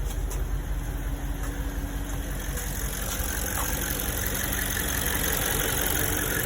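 Audi S5's 4.2-litre V8 idling steadily.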